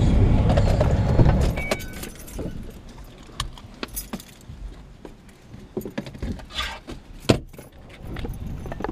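Ford SUV's engine running with road rumble, going quiet about a second and a half in as the vehicle stops and is switched off. Then keys jangle with scattered light clicks, and a sharp click near the end as the driver's door latch opens.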